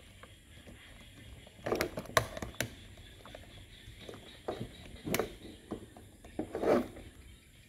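Hard plastic toy parts clicking and knocking as a toy truck's bed and excavator arm are pressed and fitted together, with a quick cluster of sharp clicks about two seconds in and a few more knocks later.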